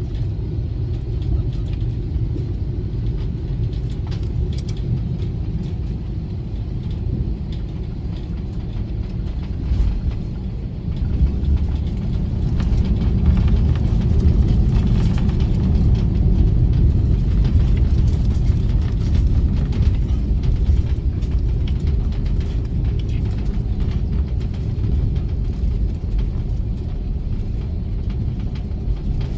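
Airliner cabin noise: a steady low rumble of engines and airframe heard from inside the passenger cabin. It grows louder about a third of the way in and eases off slightly toward the end.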